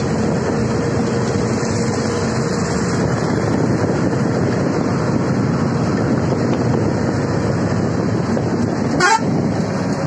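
Steady engine and road noise heard from inside a charter bus cabin at highway speed. About nine seconds in there is a brief sharp sound with a quick upward sweep.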